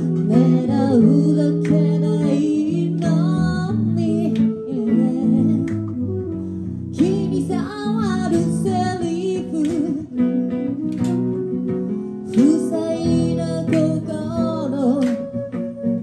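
Live acoustic band playing a song: semi-acoustic guitar with flute and a woman singing.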